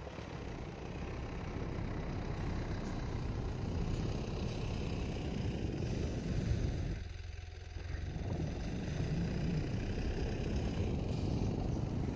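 Mitsubishi Pajero IV's 4M41 turbodiesel engine running under load as the SUV works in deep snow, with a brief drop about seven seconds in before it picks up again.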